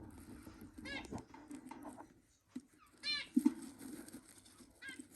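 Budgerigar giving three short chirps, about two seconds apart, the middle one loudest, with quieter low chatter and rustling between them.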